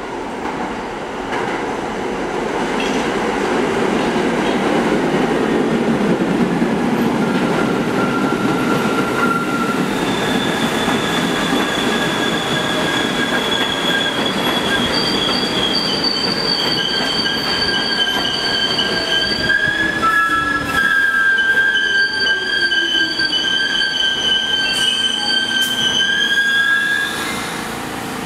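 R46 subway train running into the station and braking to a stop: a rising rumble of wheels on rail, then long, steady, high-pitched squealing in several tones as it slows, with a lower whine falling in pitch. The squeal cuts off near the end as the train comes to a halt.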